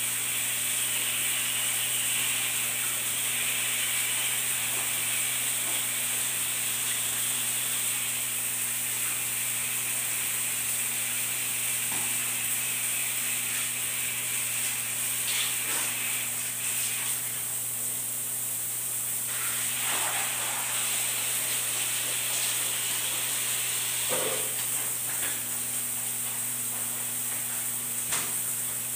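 A bath scrubber rubbing over soapy skin, rasping on and off, with a few short clicks, over a steady low hum and hiss.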